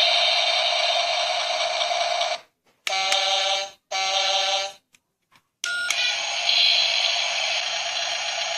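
Electronic sound effects from a toy RC front loader's small built-in speaker, set off by its buttons: a dense buzzy effect, then two short pitched beeps, a pause, and another buzzy effect starting about five and a half seconds in. Each sound starts and stops abruptly.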